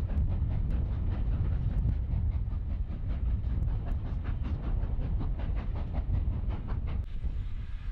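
Steam-hauled passenger train running past and pulling away: a low rumble with quick, even beats, about four a second, that fade out about seven seconds in.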